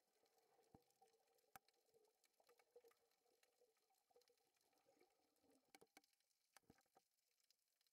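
Near silence: faint scattered clicks over a faint hum that fades out about six seconds in.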